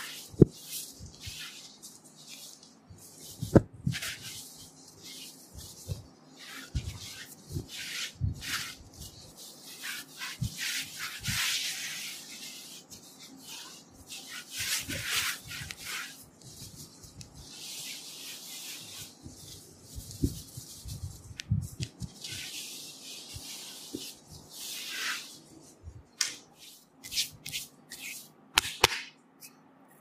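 Cotton towel wiping oil off bare skin of a back in repeated brushing, rubbing strokes, some long and some quick. A few sharp taps cut in, the loudest about half a second and three and a half seconds in.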